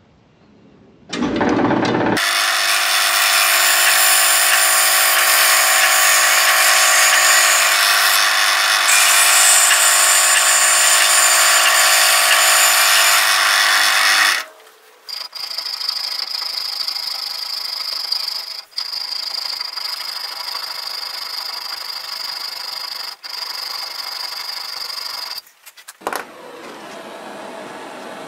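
Belt grinder running with a wooden handle block pressed against the belt: a loud, steady grinding for about twelve seconds, then lighter contact with a thin high whine and a couple of brief lifts off the belt. Near the end it stops, and a blowtorch hisses steadily.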